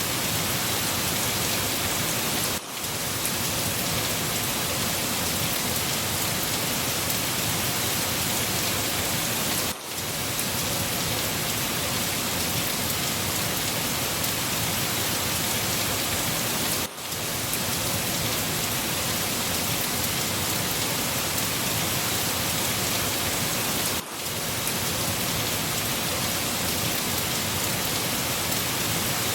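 Steady rain falling on a surface, an even dense hiss, with a brief dip in loudness about every seven seconds.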